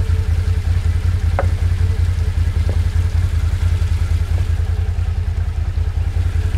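ATV V-twin engine running at a steady speed: a low, even, rapidly pulsing hum.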